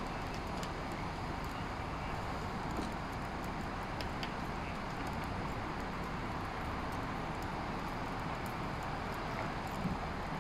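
A car fully ablaze, its flames burning with a steady rushing noise and small crackles and pops scattered through it, one a little sharper near the end.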